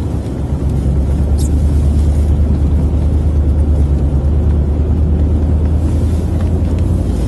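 Steady low engine and road rumble heard from inside a moving vehicle's cab, getting slightly louder about a second in.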